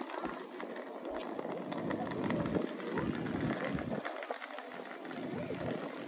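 Outdoor town street ambience: a steady mix of traffic noise and general activity, with a low rumble that swells and fades a few times.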